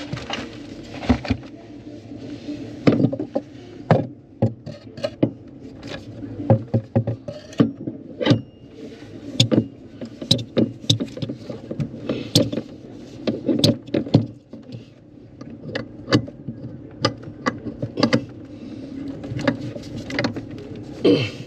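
Irregular clicks, taps and knocks of hand work on windlass deck hardware, over a steady low hum.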